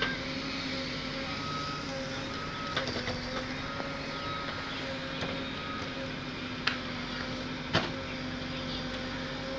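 Diesel engine of a JCB 3DX backhoe loader running steadily at an even pitch, with a few sharp clicks, two of them about seven and eight seconds in.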